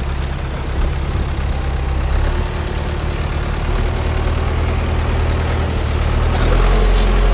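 Engine running steadily at a low idle, growing louder near the end.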